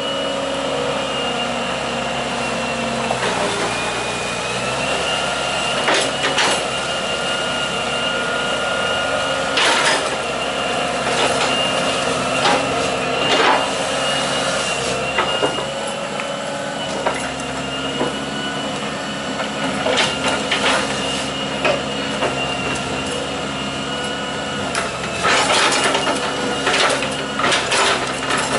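Hitachi EX120 hydraulic excavator working: its diesel engine runs steadily under a high whine that dips and shifts slightly in pitch as the boom and bucket move. Scattered knocks and clanks come from the bucket and tracks, more of them near the end.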